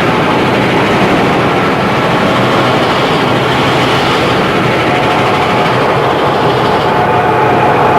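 Cartoon train sound effect: a train running with a steady, continuous mechanical noise. A faint steady tone joins in about five seconds in.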